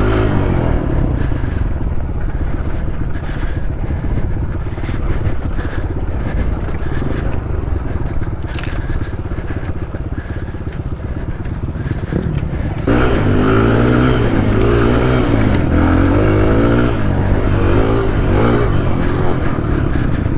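Motorcycle engine running under way, with a rough rumbling noise over it. About thirteen seconds in, the engine gets louder and its pitch rises and falls again and again as it is revved up and down.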